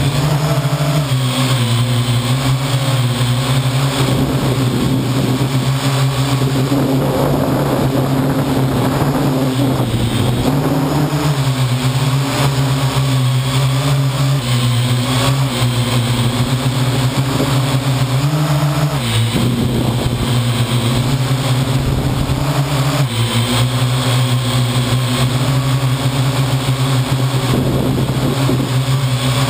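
Parrot AR.Drone quadcopter's four electric motors and propellers running, picked up right next to the rotors as a loud, steady buzzing hum. Its pitch steps up and down as the drone adjusts its thrust, dropping briefly about two-thirds of the way through.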